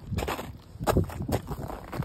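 Footsteps: irregular thumps, each with a short scuff after it, about three a second.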